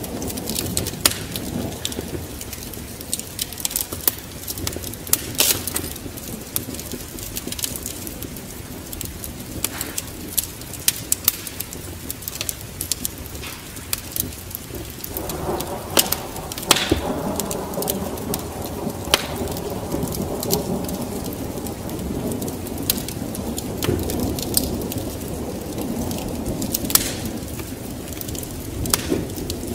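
Wood fire crackling with sharp pops over a steady hiss of rain. A low rumble of thunder sets in about halfway and runs on.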